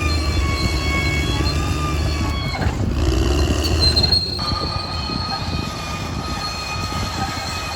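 Caterpillar D6R XL crawler bulldozer's diesel engine running under a low rumble while its steel tracks squeal steadily. The squeal changes pitch about three to four seconds in.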